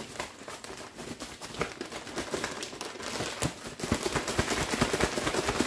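Plastic zip-top bag crinkling and rustling as chicken strips are shaken and moved around in batter mix inside it, a dense run of small crackles that gets busier and louder in the second half.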